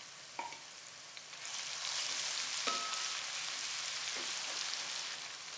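Ginger-garlic paste sizzling in hot oil with fried onions in a non-stick wok; the sizzle grows louder about a second and a half in as it is stirred, with a few light knocks of the spoon against the pan.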